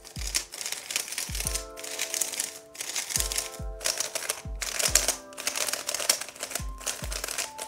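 A MoYu Super RS3 M ball-core magnetic 3x3 speedcube being turned quickly, its plastic pieces clicking in rapid irregular runs, fresh out of the box. Background music with a steady low drum beat plays underneath.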